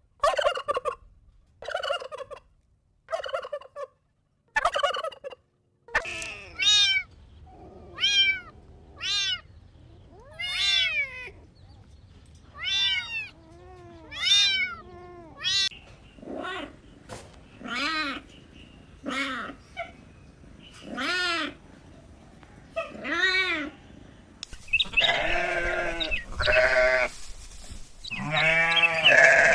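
Kittens meowing over and over, each meow rising and then falling in pitch, roughly one a second, after five short, evenly spaced calls at the start. Near the end several meows overlap and get louder.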